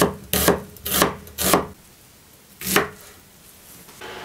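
Chef's knife slicing an onion into quarter rings on a wooden cutting board: five cuts through the onion and onto the board, four in quick succession, then one more after a pause.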